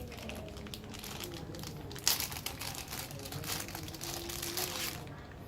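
Plastic packaging crinkling and rustling as it is handled, in irregular crackles with the loudest rustle about two seconds in.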